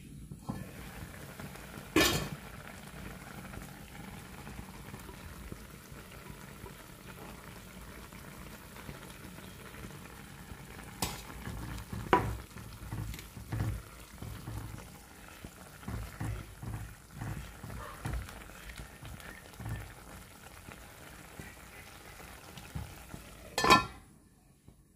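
Prawn, fish and brinjal curry bubbling and sizzling steadily in a kadai. A steel lid clanks sharply about two seconds in and again near the end as it is taken off and put back, and in the middle a spatula stirs through the thick gravy with soft scraping knocks against the pan.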